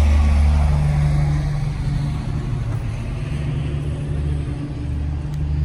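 Steady low mechanical rumble, like a motor or engine running nearby, easing slightly in the middle.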